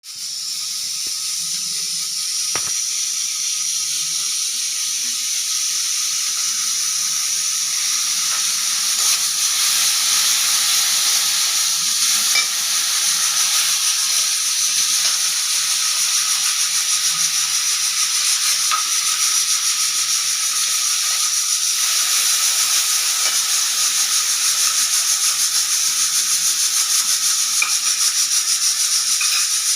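Stovetop pressure cooker venting steam through its whistle: a steady, high hiss with a thin whistling tone that slowly grows louder. In the last several seconds the hiss pulses quickly and evenly.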